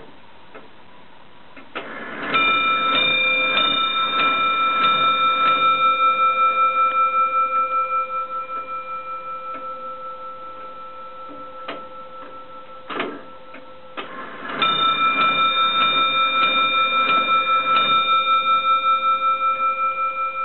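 Hughes of Caernarvon longcase (grandfather) clock striking on its bell as its hands are turned to the hour. Each run is a series of hammer blows, about one every two-thirds of a second, with the bell ringing on and fading between them. After a pause with ticking and a few clicks, a second run of blows follows.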